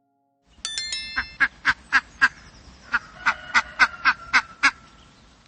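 Animal calls: two quick runs of short, sharp calls, about four a second, with a short pause between them.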